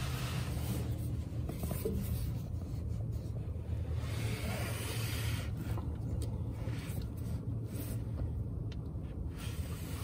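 Hands handling hydraulic hoses and wiring on a snowblower attachment, with light rubbing and a few small clicks over a steady low rumble.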